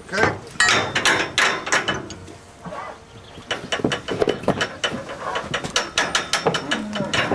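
Metal cattle crush and its gates clanking and rattling, many irregular knocks in quick succession, as cattle push and are moved through the crush.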